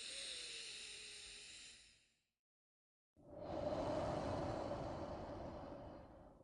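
A person breathing slowly and deeply in a meditative breathing exercise: one long, soft, hissy breath, then about a second later a second long breath, louder and lower.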